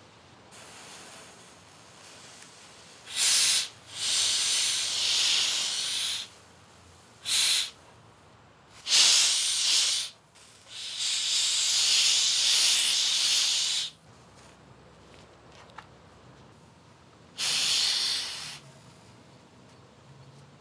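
Hot clothes iron pressed onto a wet cloth over a dented wooden tabletop corner, the water flashing to steam in six hissing bursts, the longest about three seconds, with quiet gaps between. The steam is swelling the crushed wood fibres to lift the dent out.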